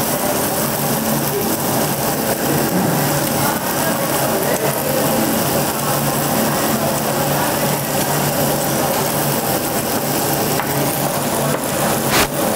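Steady restaurant din: a constant mechanical hum under a dense hiss, with a single sharp clack near the end.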